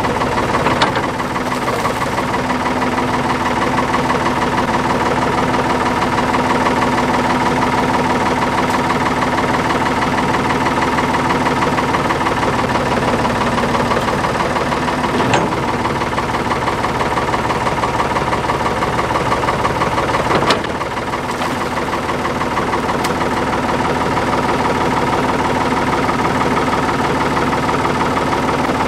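Ford backhoe engine idling steadily while the freshly rebuilt outrigger hydraulic cylinder is worked with its lever. A few sharp clunks break through, the loudest about 20 seconds in, after which the engine runs a little quieter.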